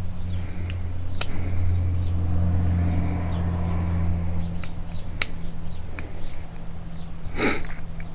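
Small metal clicks and taps of a pick and lock parts being worked while the back spring is taken off a car trunk lock cylinder, over a steady low hum. A short, louder scrape or rattle comes near the end.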